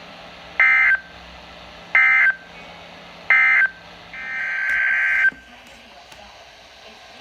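Emergency Alert System digital data tones sent over weather radio: three short, evenly spaced warbling bursts, about 1.3 s apart, that end the warning message. A longer burst of similar data noise, rising in level, follows about four seconds in and lasts just over a second. Steady radio hiss runs underneath.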